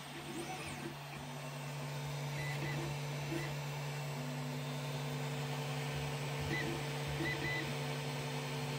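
Creality Ender-3 3D printer printing: its stepper motors give short whining tones that shift pitch in steps as the print head moves, over a steady low hum.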